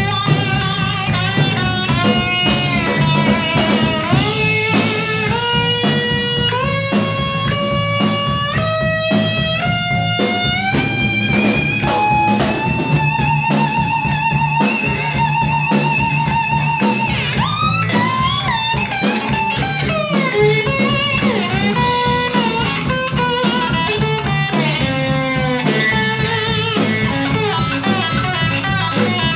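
Blues band playing live: an electric slide guitar solo over bass and drums. The slide notes glide upward in a climbing phrase, a long note is held with vibrato about halfway through, and quicker falling phrases follow over a steady drum beat.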